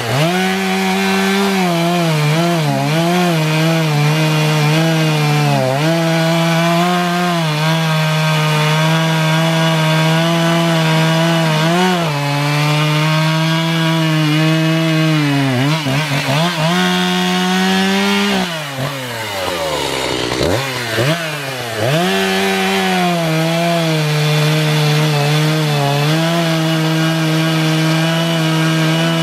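Echo CS-590 Timber Wolf two-stroke chainsaw at full throttle, bucking a white oak log, its pitch sagging briefly now and then as the chain bites into the wood. About two-thirds of the way through, the engine falls off toward idle and revs back up, then carries on cutting.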